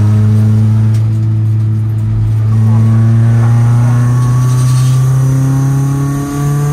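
Car engine running hard, its pitch rising slowly and steadily, with a brief dip in loudness and a jump up in pitch near the end.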